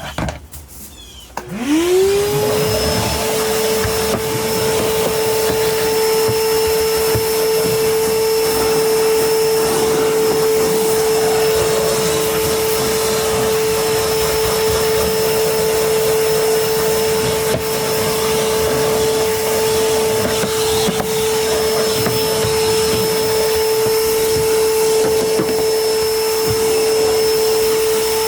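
Vacuum cleaner switched on about a second and a half in: its motor spins up with a quickly rising whine, then runs steadily while vacuuming a dirty car carpet.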